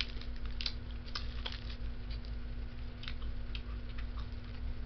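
Biting and chewing a Slim Jim meat stick: irregular soft clicks and smacks of the mouth, over a steady low hum.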